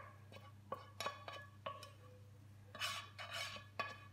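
A spoon scraping and tapping caramelised hazelnuts and almonds out of a pan onto baking paper: a series of irregular, faint clinks with a short ringing, and a brief scrape near three seconds in.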